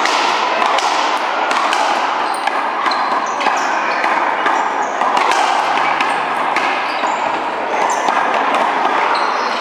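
One-wall racquetball rally: repeated sharp smacks as the ball is struck by racquets and hits the wall, over a steady background hiss.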